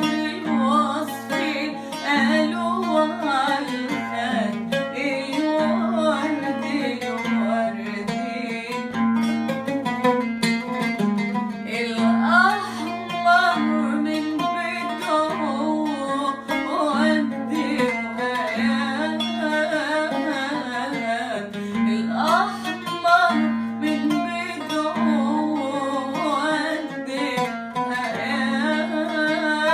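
Background music: a plucked string instrument plays an ornamented, gliding melody over a low bass note repeated about once a second.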